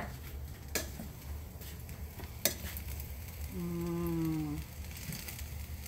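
Fried rice sizzling as a spoon stirs and tosses it in a stainless steel pan, with two sharp clinks of the spoon against the pan about a second in and halfway through.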